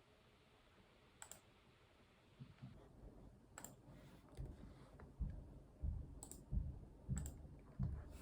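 A few sharp, faint clicks of a computer mouse and keyboard keys, spaced a second or more apart, with soft low thuds of keystrokes on the desk between them from a couple of seconds in.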